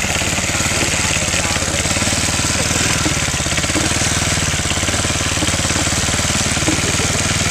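Engine of a small miner's tractor running steadily under way, a fast, even chug.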